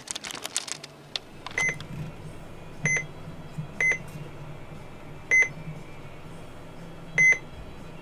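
Button beeps from a Midland 74-200 weather alert radio being set up: five short, high beeps at uneven intervals, each marking a key press. A few clicks come in the first second or so, and a low steady hum runs underneath.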